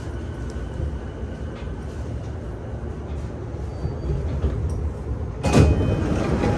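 Low steady rumble inside a JR E233 series 2000 commuter train car at the platform, then about five and a half seconds in the car's sliding doors open with a sudden loud burst of noise and a brief tone.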